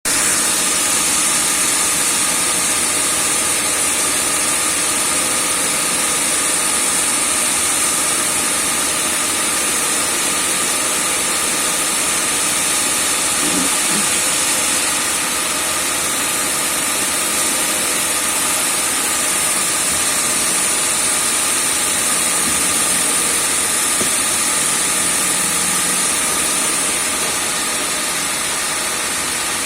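A grinder running steadily: a continuous machine whine with a strong high hiss, dipping slightly in level about halfway through and again near the end.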